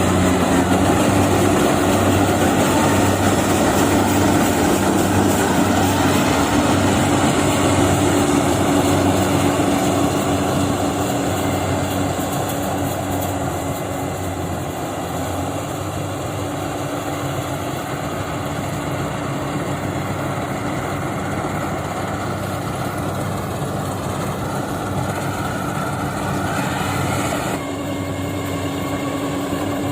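Yanmar AW70V combine harvester running steadily under load: a steady engine hum under the broad noise of the machinery. It gets a little quieter about a third of the way in, and the sound changes abruptly near the end.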